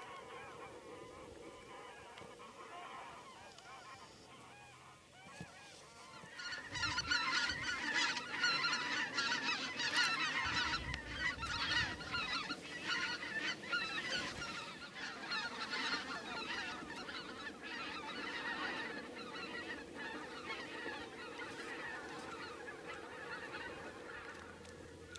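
A flock of wild geese calling, a dense chorus of many overlapping honks. It swells about six seconds in and slowly thins toward the end.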